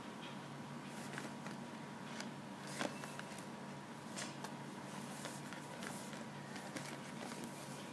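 Hands unpacking a medicine box and its powder sachets: scattered soft clicks and rustles of cardboard and foil packaging, with one sharper click about three seconds in, over a steady low hum.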